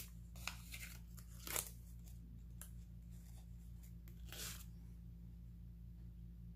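Packaging handled by hand: a series of short rustles and crinkles, the longest a little over four seconds in, over a steady low hum.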